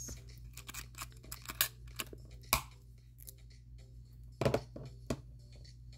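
Irregular sharp clicks and light knocks of small objects being handled, a little louder about four and a half seconds in.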